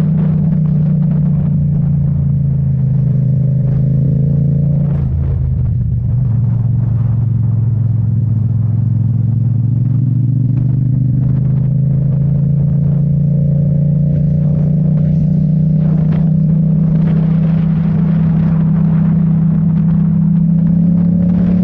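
A vehicle's engine running steadily while driving. Its pitch drops about five seconds in, then climbs slowly through the rest.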